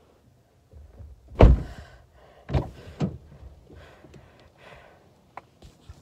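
A toddler blowing short, breathy puffs into a harmonica: a few separate bursts, the loudest about one and a half seconds in.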